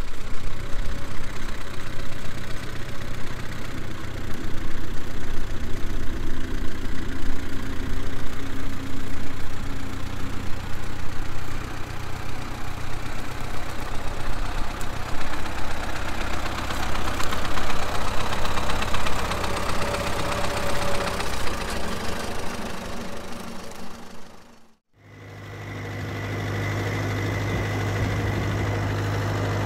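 1942 Silver King Model 41 tractor engine running as the tractor is driven, growing fainter as it pulls away. The sound drops out briefly about 25 seconds in, then a steady engine hum fades back in.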